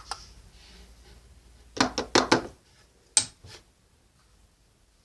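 A quick run of four sharp knocks or taps on hard objects about two seconds in, then two more single taps a second later; the rest is quiet room tone.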